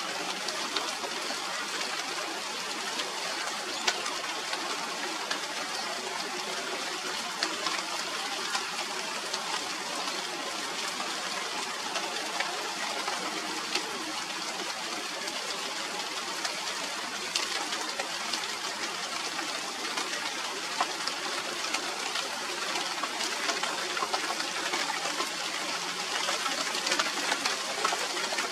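Steady rain falling on the leaves of a China doll tree (Radermachera sinica): an even hiss dotted with many small drop ticks, growing a little heavier near the end.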